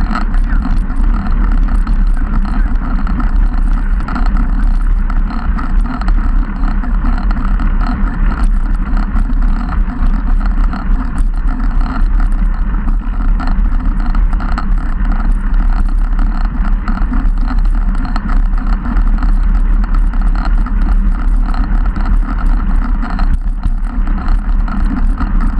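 Steady wind rush and road rumble on a camera mounted to a road bike riding at speed, with many small rattles and knocks from the road's vibration.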